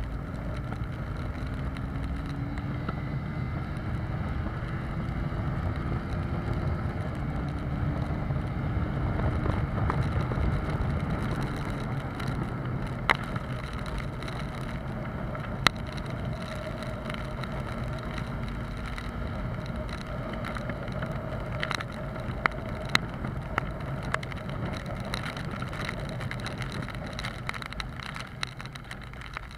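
Honda CBR250R's single-cylinder engine running on its stock exhaust under way, with wind rumbling across the microphone. The engine note climbs slowly, drops about seven seconds in as it shifts, then holds steady and eases off near the end. A few sharp ticks cut through.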